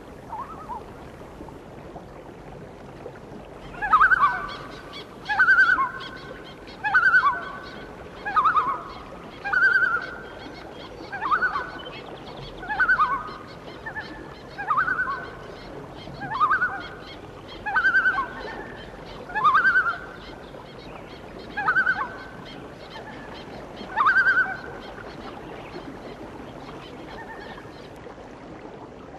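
A bird calling over and over: about fourteen loud pitched calls, roughly one every one and a half seconds, stopping a few seconds before the end.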